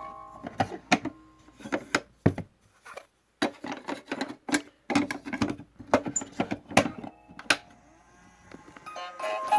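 Irregular clicks and knocks of hard plastic as a 1970s Fisher-Price #995 toy record player is handled while its tune has stopped, with a brief silence about three seconds in.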